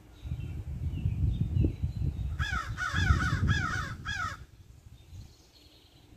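A crow cawing four times in quick succession, over a low rumble.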